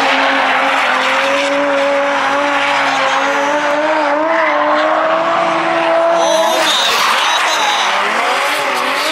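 Drift car engine held at high revs with the rear tyres screeching as the car slides sideways around a cone course. About two-thirds of the way through, the engine note drops and wavers as the car eases off.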